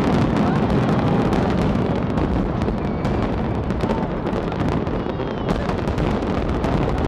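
Fireworks grand finale: a dense, continuous barrage of aerial shell bursts, the bangs overlapping so closely that they run together without a pause.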